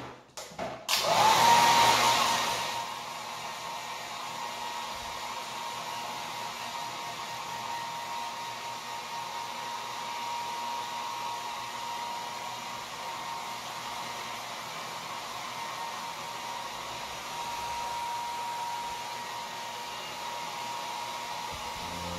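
A few clicks, then a handheld hair dryer comes on about a second in and blows with a steady hiss and a thin high whine, loudest for its first couple of seconds and then even.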